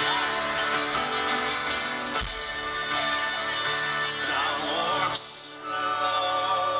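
Live band playing on an outdoor stage, heard from within the crowd: guitars and singing over a full band. The music thins out briefly about five seconds in, then picks up again.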